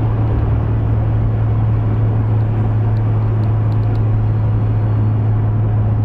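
Car running at highway speed, heard from inside the cabin: a steady low drone over even tyre and road noise.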